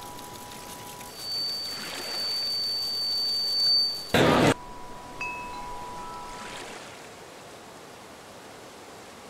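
Chime-like ringing tones held at steady pitches, with a high thin tone coming in about a second in. A loud burst of noise a little after four seconds cuts off sharply, then the tones come back faintly and fade to a quiet hiss.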